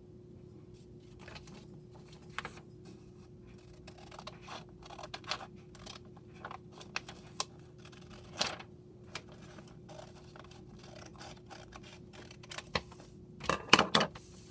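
Scissors snipping through a sheet of paper in short, irregular cuts, with paper rustling. A louder cluster of knocks and rustles comes near the end.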